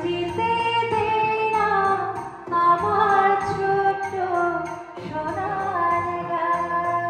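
Background music: a song with a voice singing a flowing melody over a steady bass beat.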